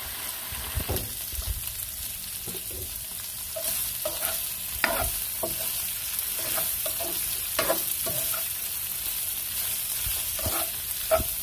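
Pork chunks, already simmered tender, sizzling as they fry in hot oil in a nonstick pan. They are stirred and turned with a spatula that scrapes and taps the pan now and then. The sizzle gets louder about four seconds in.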